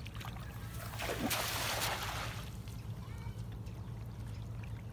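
A cast net landing on a river's surface about a second in: a single splash as the spread net and its weights hit the water, lasting about a second and a half. A steady low hum runs underneath.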